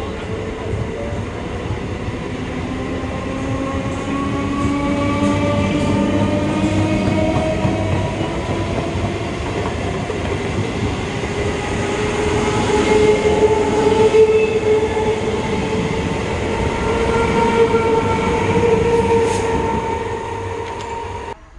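Electric multiple unit (EMU) local train accelerating, its traction motors whining in several tones that rise steadily in pitch over the loud rumble of wheels on rail. The sound cuts off abruptly near the end.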